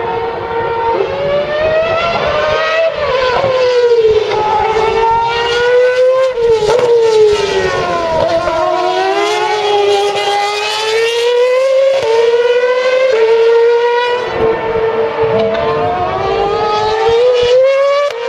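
Formula One cars' 2.4-litre V8 engines at high revs, the pitch climbing under acceleration and sliding down under braking several times over, with quick steps in pitch at the gear changes.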